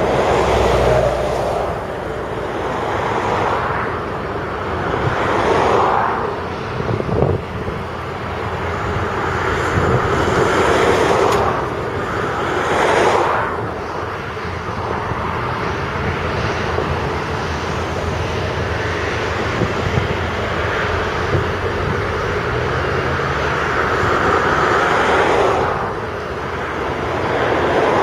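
Diesel engines of a Volvo excavator and Volvo articulated dump truck running under load while the truck is loaded with soil, a continuous rumble that swells and eases every few seconds. A short clatter comes about seven seconds in.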